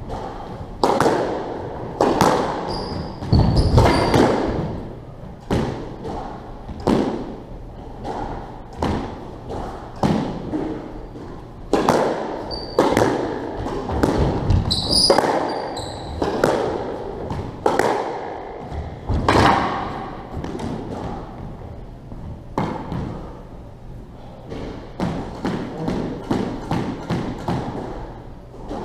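Squash rally: the rubber ball smacking off racquets and the court walls in an irregular run of hits, each one ringing in the hollow court. A few short high squeaks come from shoes on the wooden floor.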